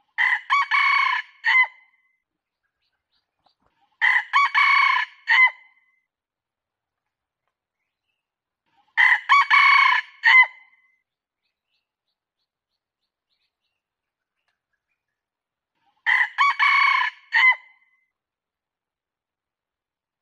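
Red junglefowl rooster crowing four times, each a short clipped crow of a few syllables ending in a brief final note, with several seconds of silence between crows.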